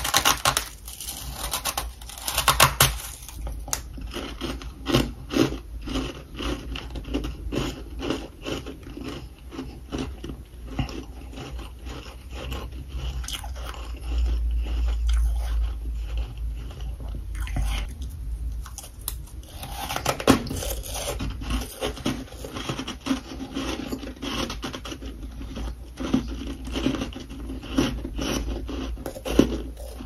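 Freezer frost being bitten and chewed, many crisp crunches in quick succession, with louder flurries near the start and about two-thirds of the way through.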